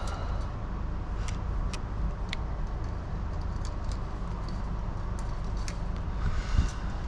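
Scattered light metallic clicks and clinks of chain-link wire being handled and twisted, over a steady low rumble. The clicks come irregularly, and there is a brief louder rustle near the end.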